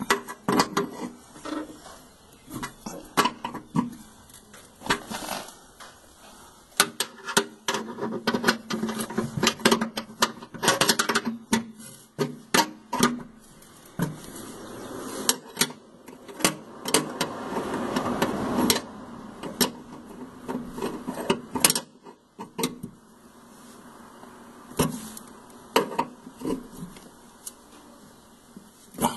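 Hand tools and metal hardware clinking and knocking while the nuts are tightened on the tractor fender handle's bolts, with many sharp clicks and a longer stretch of scraping and rattling about halfway through.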